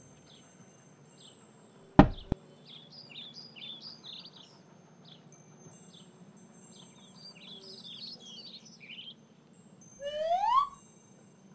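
Cartoon sound effects over a background of chirping birds: a sharp hit about two seconds in, two runs of bird chirps, and a short rising swoop near the end.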